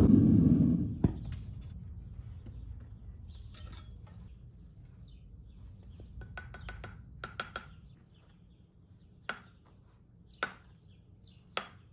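A loud steady roar of the melting furnace's burner cuts out about a second in. Then, over a quiet background, a few light metallic taps and clicks come from dross being skimmed off the molten aluminum and knocked off the skimmer onto a firebrick.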